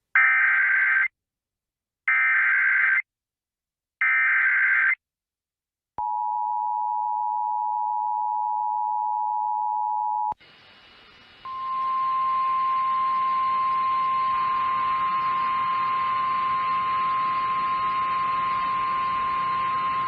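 Emergency Alert System tones: three one-second bursts of SAME data tones (the digital header), then the two-tone EAS attention signal held steady for about four seconds. After a brief gap of faint hiss, a steady single-pitch tone begins over radio hiss: the NOAA Weather Radio 1050 Hz warning alarm on the relayed National Weather Service feed.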